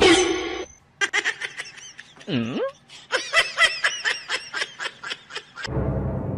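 A person laughing hard in quick repeated bursts, with one drawn-out vocal swoop partway through. Music comes in near the end.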